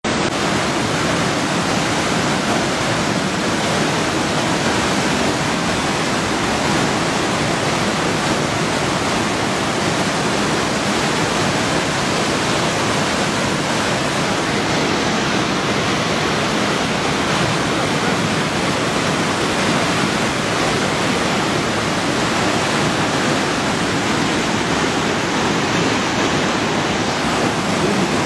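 Waterfall and mountain stream rushing through a rocky gorge: a steady, unbroken sound of falling and churning water.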